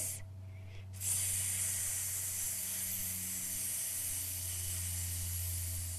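A steady, whispering hiss standing for a lawn sprinkler's spray. It starts about a second in and fades away near the end.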